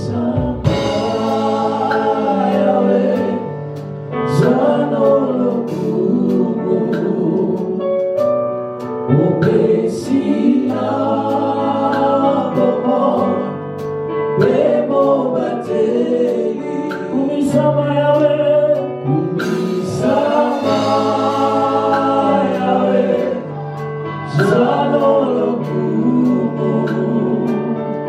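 Gospel worship music: a choir or worship team singing together over sustained keyboard chords with a steady beat.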